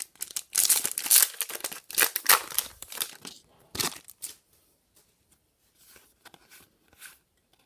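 Foil Yu-Gi-Oh booster pack wrapper being torn open and crinkled: a run of crackling tears for about three seconds, a sharp snap near four seconds, then a few faint rustles.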